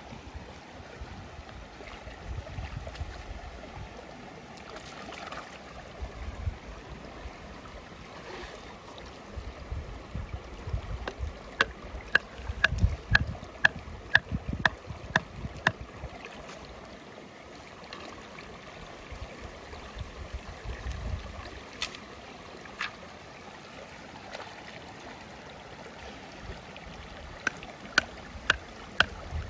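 A wooden stake being hammered into a canal bed: a run of sharp knocks, two to three a second, in the middle, and another short run near the end. Under them is the steady rush of flowing canal water, with low wind rumble on the microphone.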